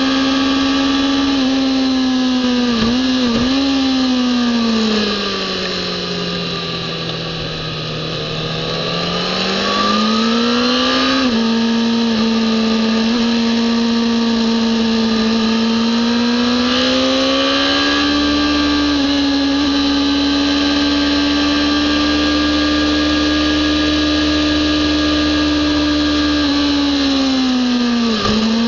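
Kawasaki ZX-10R inline-four engine at high revs, heard from an onboard camera. The note falls and quietens as the throttle closes for a corner around six to nine seconds in, then climbs again. It dips briefly at gear changes about three and eleven seconds in and again near the end.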